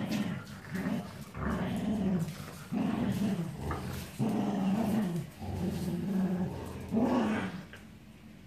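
Dogs growling at play while they tug on a plush toy: a string of short growls, one after another, dying down near the end.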